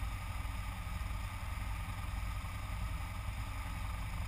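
Harbor Freight mini lathe running steadily with a low, even hum as it turns an aluminium tube.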